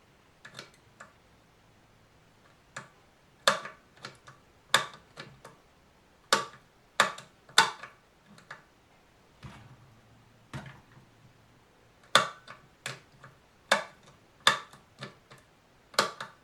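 Sharp, irregular clicks and small knocks, some in quick pairs, of an electric fan's push-button speed switches being pressed over and over while the fan fails to start.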